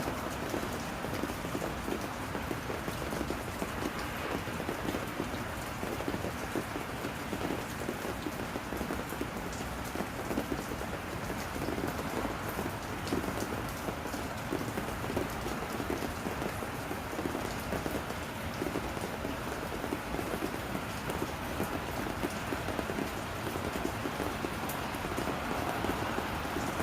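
Steady patter of falling precipitation on the surroundings: an even hiss thick with small drop ticks, holding at one level throughout.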